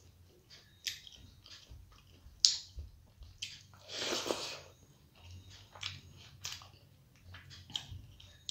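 Close-miked eating by hand: wet squishing of rice being mixed with fish curry on a steel plate, then a mouthful taken about four seconds in and chewed, with scattered small clicks. A sharp click about two and a half seconds in is the loudest sound.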